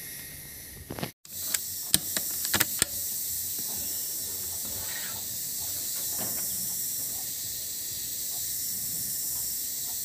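Steady high-pitched hiss, with a brief dropout about a second in and several sharp clicks over the next two seconds.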